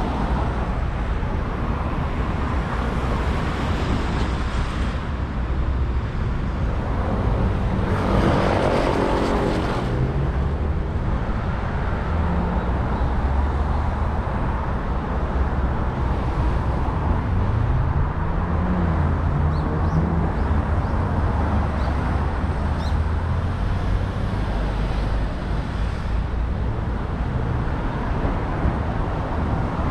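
Street traffic noise, a steady rumble, with a louder vehicle passing about eight seconds in and a low engine note rising and falling a little past the middle.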